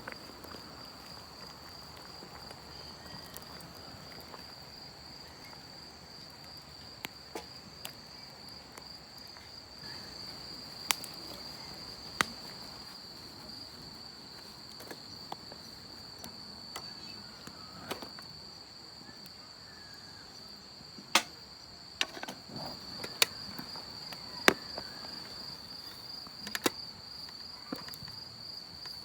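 A steady, high, slightly pulsing insect trill runs throughout, with a few sharp clicks or knocks scattered through it, the loudest near the middle and in the last third.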